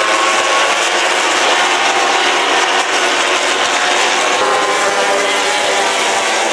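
A pack of road-racing motorcycles passing close together, several engines at high revs with their overlapping pitches wavering slightly as they drive through a corner.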